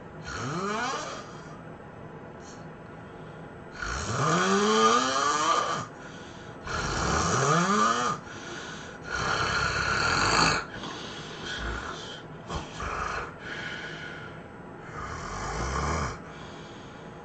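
A person snoring heavily: five strong snores about three seconds apart, several with a pitch that rises through the snore, and softer snoring breaths between them.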